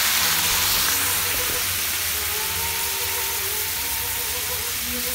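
Green beans in a hot stainless sauté pan sizzling and steaming hard as white wine deglazes the pan: a steady, loud hiss that slowly eases.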